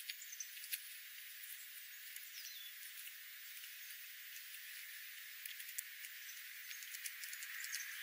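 Birds feeding on scattered seed: scattered sharp clicks and a few short high chirps, one of them a quick falling chirp about two and a half seconds in, over a faint steady hiss.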